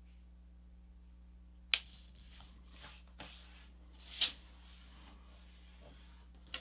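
A sheet of paper being folded and creased by hand: a sharp tick of the paper a little under two seconds in, soft swishes as it is pressed and smoothed, and a louder rustle about four seconds in as the folded sheet is slid and turned.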